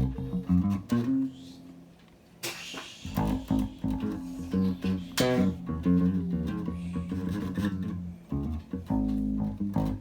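Electric bass guitar played through a vintage tube compressor: a run of plucked low notes, pausing briefly about two seconds in, then coming back with a sharp, bright attack.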